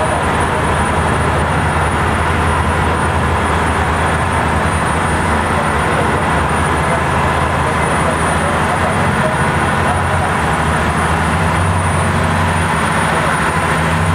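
A boat engine running steadily as a low drone, heard on board a fishing trawler, under a constant rushing noise of wind and water.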